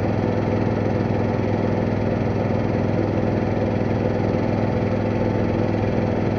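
Boat's engine running steadily under way, an even drone that holds the same pitch throughout.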